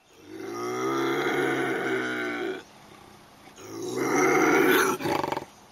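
Bobcat calling: two long, low, drawn-out calls, the second shorter and breaking into a rough rasp at its end.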